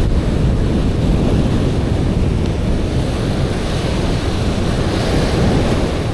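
Strong wind buffeting the microphone over the steady wash of breaking surf, a rough, windy beach.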